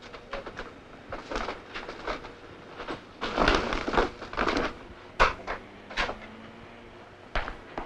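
A shop's glass door being opened and let swing shut, with footsteps: a run of knocks, clicks and scuffs, busiest around the middle, with a few single sharp clicks after.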